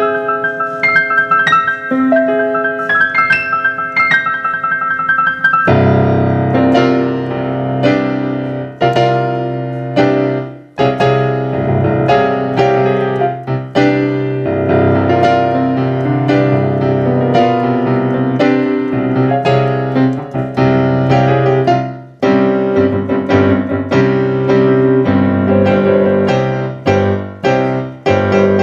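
Piano playing: a few light, high notes at first, then about six seconds in a bass line enters under full, loud chords that continue in phrases.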